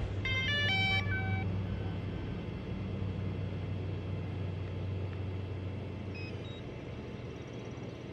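DJI drone starting up: a quick run of electronic beeps, then a steady low hum from the spinning motors and propellers that slowly fades, with a few more short beeps about six seconds in.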